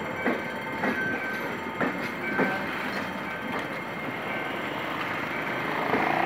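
Passenger train coaches rolling past on departure, their wheels knocking sharply over rail joints several times amid a steady rumble. The sound grows louder near the end as the last coach goes by.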